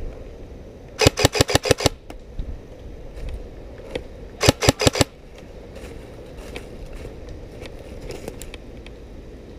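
Airsoft gun firing two quick strings of shots close by: about eight sharp cracks in a second, then about five more a few seconds later.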